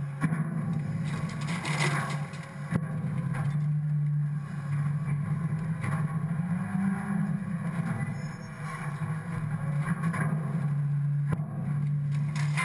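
Scorpion automated side-loader refuse truck's engine and hydraulics running with a steady low hum while the side arm lifts and tips a wheeled cart, with a couple of sharp knocks.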